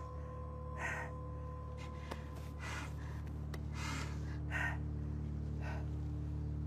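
A man gasping for breath several times, short ragged breaths about every second or two, over a low, steady music drone.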